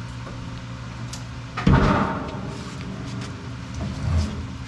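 A single heavy thump about a second and a half in, then a lighter knock near the end, over a steady low hum.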